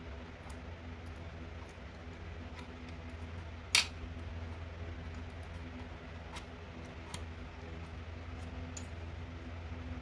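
Small metal clicks and taps from handling a foil-impressioning lock tool and its foil strip, with one sharp click about four seconds in, over a steady low hum.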